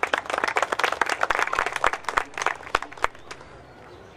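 Audience applauding: dense clapping that thins out after about three seconds and dies away.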